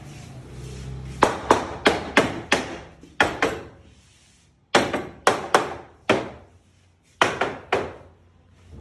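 Hammer blows on a wooden piece of furniture being assembled, knocking its parts together. The sharp strikes come in quick runs of two to five, with short pauses between runs.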